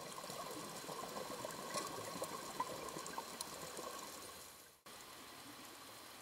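Faint underwater ambience: a crackling hiss of water with scattered small clicks. About five seconds in it cuts briefly and gives way to a steadier, even hiss.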